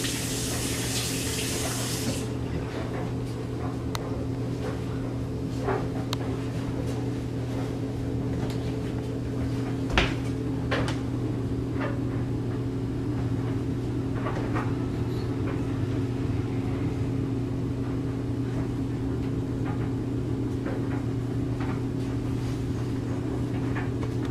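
Toilet flushing, a loud rushing hiss for the first two seconds, then the tank refilling with a steady hum, with a few scattered clicks and knocks.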